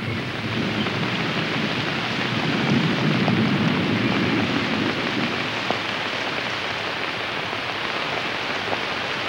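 Steady heavy rain falling, with a low rumble of thunder that swells and fades a few seconds in.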